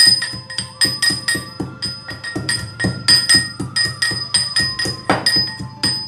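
Brass pestle pounding ginger, cardamom, cloves, peppercorns and tulsi leaves into a paste in a steel mortar: quick ringing metallic strikes, about three a second.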